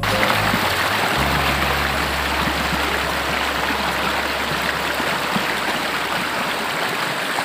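Spring-fed stream water rushing over rocks and spilling down a small waterfall, a steady loud rush. A low rumble underneath fades out near the end.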